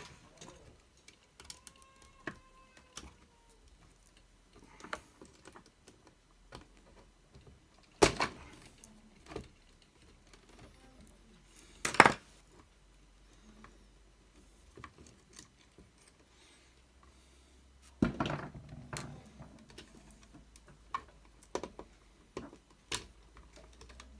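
Scattered clicks and knocks of a hand-held radio-control transmitter's plastic case and parts being handled and taken apart, with sharper knocks about 8, 12 and 18 seconds in.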